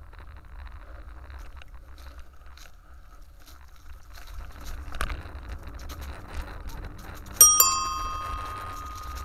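Bicycle bell rung twice in quick succession about seven seconds in, its bright tones ringing on and fading over a couple of seconds, over a low steady rumble of riding along the path.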